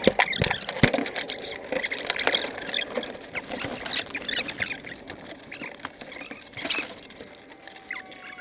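Cockpit handling noises in a small plane's cabin with the engine off: scattered clicks, knocks and rustling as headsets are taken off and the cabin door is opened. A faint steady tone, slowly falling in pitch, starts near the end.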